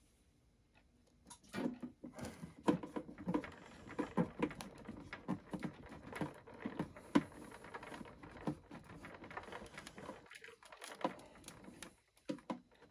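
Screws being tightened by hand into the metal cabinet of a Sansui T60 stereo tuner: a dense run of irregular small clicks and taps. It starts about a second in and stops shortly before the end.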